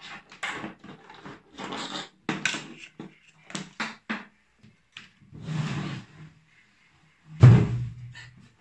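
Objects being handled and set down on a work surface: a string of irregular knocks, clatters and rubbing sounds, with a heavier thump near the end.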